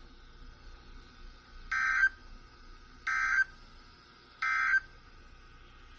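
Three short bursts of SAME digital data tones from NOAA Weather Radio, evenly spaced about a second and a half apart: the EAS end-of-message code that closes a severe thunderstorm warning. A faint radio hiss runs underneath.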